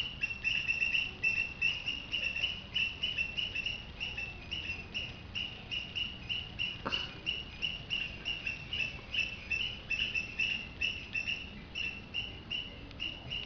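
Rhythmic high-pitched chirping, about three short chirps a second, repeating evenly, with one sharp click about seven seconds in.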